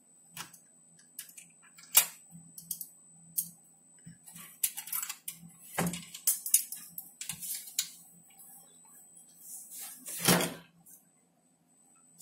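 Small metallic clicks, taps and scrapes of a screwdriver and screw working against a monitor's sheet-steel chassis as a regulator IC is screwed down, with sharper knocks about two seconds in, around six seconds and about ten seconds in. A faint steady hum lies underneath.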